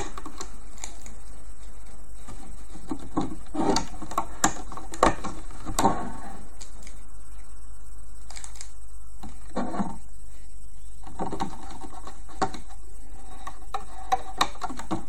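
Irregular light clicks and taps of hands working rubber loom bands onto the plastic pegs of a Rainbow Loom, with a cluster of clicks a few seconds in and a few more near the end, over a steady low hum.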